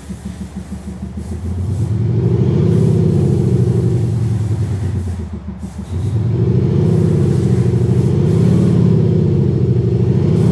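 Mercedes GLE V167 revved while standing, its exhaust note augmented by a Panthera LEO MAGNA Sound Booster active-exhaust speaker set to Race mode. A pulsing idle swells about two seconds in into held revving whose pitch rises and falls, drops back briefly, then revs again about six seconds in.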